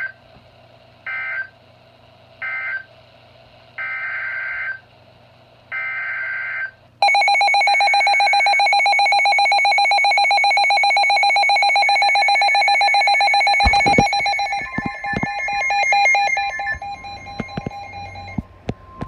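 Emergency Alert System data bursts: three short buzzy bursts, then two longer ones. They are followed about seven seconds in by the loud, steady attention signal tone. Around two-thirds of the way through, the tone breaks up with crackles and a further steady tone joins it.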